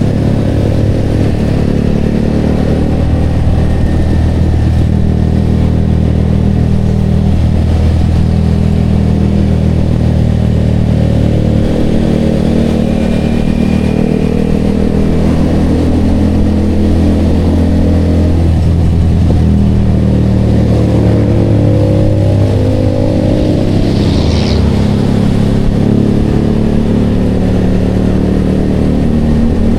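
Yamaha XSR motorcycle engine running through an aftermarket Vmax canister exhaust, its pitch shifting up and down a few times as the revs change.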